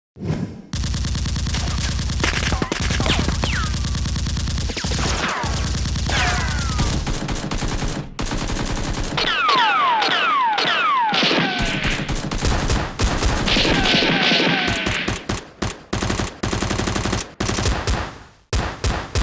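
Rapid automatic gunfire sound effects, shot after shot, with falling whistling tones mixed in. The firing thins out into separate shots near the end.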